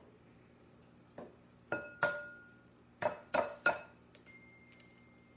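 An egg tapped against the rim of a glass mixing bowl to crack it: about six sharp knocks, the glass ringing briefly after several, the last three coming close together about three seconds in.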